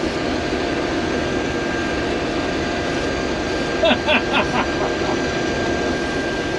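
Case IH combine running under load while cutting wheat, heard from inside the cab: a steady engine and threshing drone with a constant high whine.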